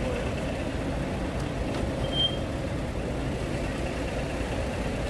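Steady low rumble of vehicle engines running, with a short high beep about two seconds in.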